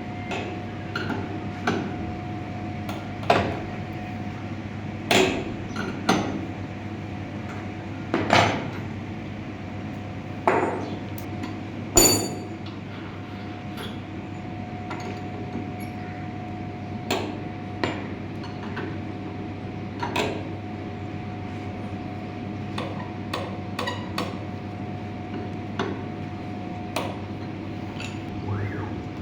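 Steady hum and whine of a CNC router working a PVC board, with irregular sharp knocks and clacks through it, the loudest a ringing metallic clink about twelve seconds in.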